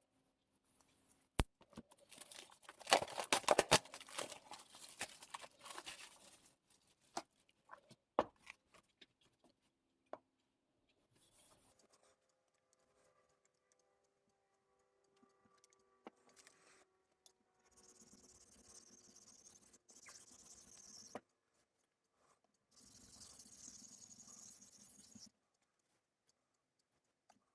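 Clatter and knocking of whetstones and tools being handled, loudest near the start, then two stretches of steady scraping hiss a few seconds long.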